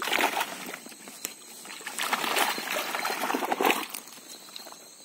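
Cloth rubbing and brushing directly against a phone's microphone: a short scuff at the start, then a longer spell of rustling from about two seconds in that stops about a second before the end.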